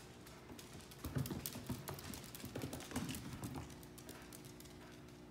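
Dogs' claws clicking and scrabbling on a hardwood floor as a puppy plays with other dogs, with soft thumps of paws and bodies. The clatter is busiest from about a second in until nearly four seconds, then thins to a few light ticks.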